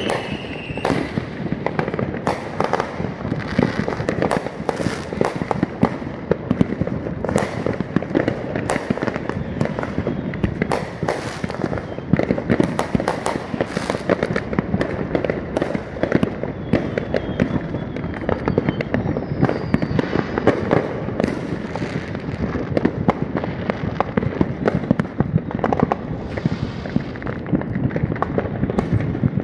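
Fireworks going off in a dense, continuous barrage of rapid bangs and crackles, with no pause.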